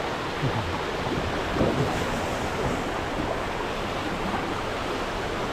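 Steady rush of shallow river water flowing over rocks, with some wind noise on the microphone.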